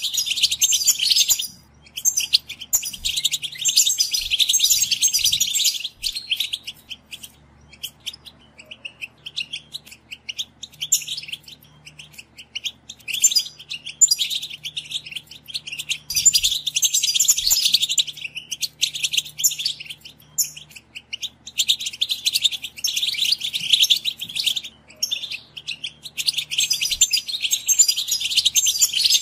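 European goldfinches singing: fast, high, jangling twitter in bouts of a few seconds with short pauses between, quieter and sparser for a few seconds near the middle.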